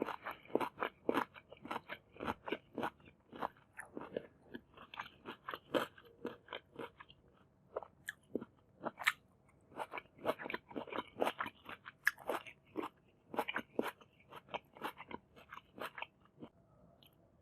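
Close-up sound of a person chewing crunchy food: rapid wet crunching bites, a few a second, with a short lull midway, fading out near the end.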